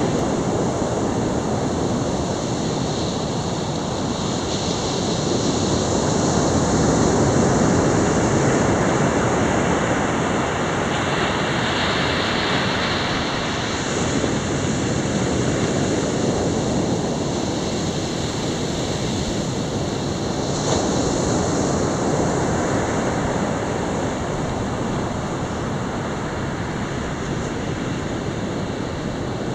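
North Sea surf: waves breaking and washing up over a flat sand beach as a steady, even rush.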